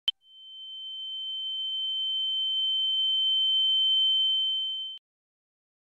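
A short click, then a single high steady electronic tone that swells in over a few seconds and cuts off suddenly about five seconds in: an intro sound effect under the channel's title card.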